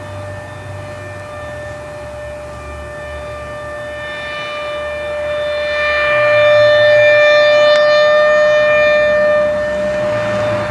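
Federal Signal Thunderbolt 1000 siren sounding a single steady tone, weak because its blower (supercharger) is malfunctioning. The tone swells louder past the middle as the rotating horn sweeps toward the listener, then falls back near the end.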